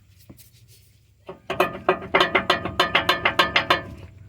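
A long, sputtering fart-like noise played as the truck's "noise": a rapid run of buzzy pops, about six a second, starting a little over a second in and lasting about two and a half seconds before trailing off.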